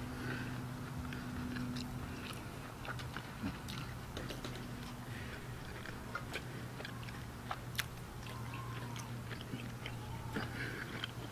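A person chewing and biting a grilled mutton chop, with scattered small wet clicks of chewing throughout. A steady low hum sits underneath.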